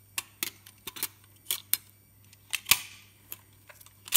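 Kiev 6C waist-level viewfinder hood being folded down and popped open by hand: a string of about ten light clicks and snaps, the loudest about two-thirds of the way through and another strong one at the end.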